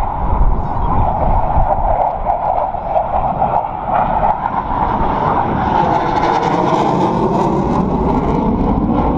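Jet noise from Blue Angels F/A-18 jets flying over the airfield, a steady rushing roar that gets brighter and harsher about six seconds in as a jet passes.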